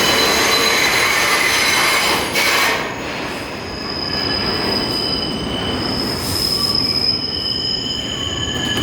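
R142 subway train running on the rails with a loud, dense rumble that eases about three seconds in. Its wheels squeal in several high, steady tones through the rest.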